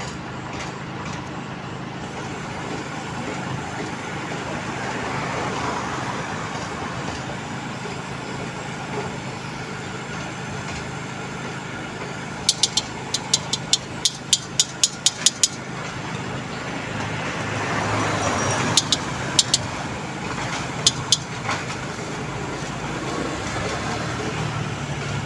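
Steady road-traffic noise, with a quick run of about a dozen sharp, high clicks around the middle and a few more clicks later.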